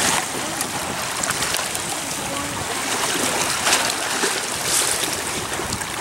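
Steady wind blowing across the microphone over choppy water, with waves lapping.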